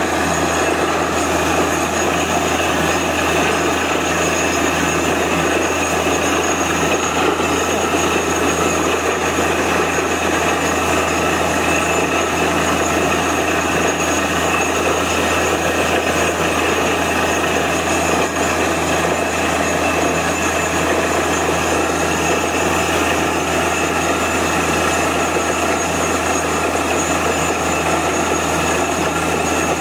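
Truck-mounted borewell drilling rig running steadily while drilling, its engine and air compressor a constant drone, with the hiss of air blasting water and cuttings out of the borehole mouth.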